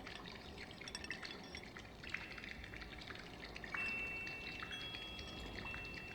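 Soft water dripping and trickling in a meditation soundscape, with high, clear chime tones struck one after another from about two seconds in and left ringing.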